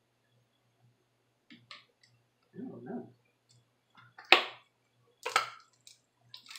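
Light scrapes and clicks of a plastic spoon stirring a thick mayonnaise-and-salsa dressing in a plastic bowl, then a few sharp clacks as a squeeze bottle of mayonnaise is handled and turned over to squeeze, the loudest about four seconds in.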